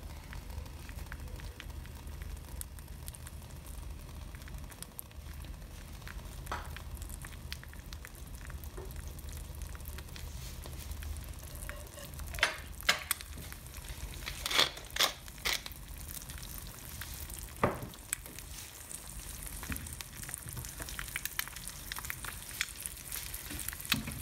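An egg frying in butter in a small nonstick pan: a steady, faint sizzle and crackle. A handful of sharp clicks cut in around the middle.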